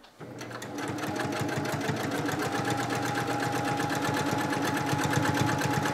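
Sewing machine running at a steady speed, its needle stitching in a rapid, even rhythm as it sews quilt binding in the ditch; starts about a quarter second in. It sounds right to the sewer, who listens for a change when the stitching goes wrong.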